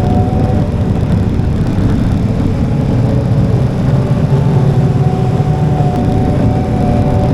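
Motorcycle engine running while riding along the road at a steady pace, with a low rumble of road noise. The engine note shifts slightly partway through.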